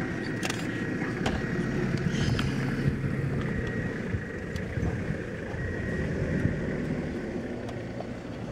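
Low steady rumble of an idling engine, with a few faint clicks.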